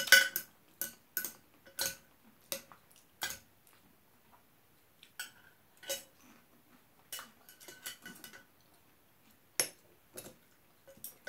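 Metal chopsticks clinking against a bowl as food is picked up: a dozen or so sharp clinks with a short ring, spaced irregularly, with a quick run of them about two-thirds of the way through.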